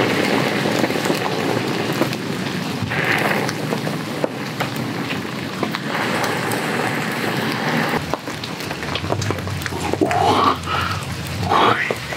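Heavy rain falling steadily, pattering on the tarp overhead, with a man's brief vocal sounds near the end.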